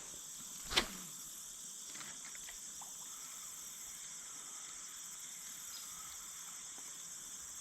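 Faint, steady chorus of insects, a continuous high-pitched drone, with a single short click about a second in.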